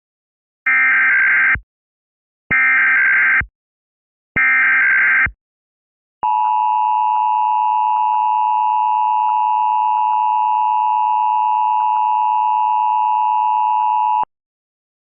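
Emergency Alert System SAME header: three short, identical bursts of digital data tones about a second apart, followed by the EAS attention signal, a steady tone near 1 kHz held for about eight seconds that cuts off abruptly.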